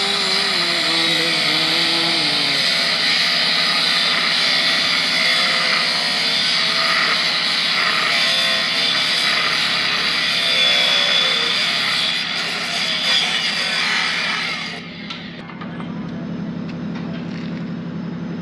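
Angle grinder with a cut-off disc cutting through a steel bar, a loud steady grinding scream whose pitch wavers as the disc bites. About fifteen seconds in it stops, leaving a lower steady machine hum.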